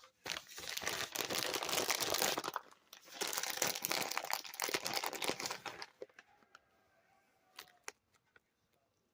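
Crinkling and rustling of packaging being handled, in two stretches of a few seconds each, followed by a few light clicks near the end.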